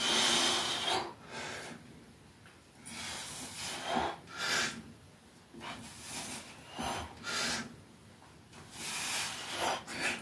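A man's heavy breathing under exertion, with short forceful exhales through the mouth, roughly one a second, as he presses resistance bands overhead; the strongest comes in the first second.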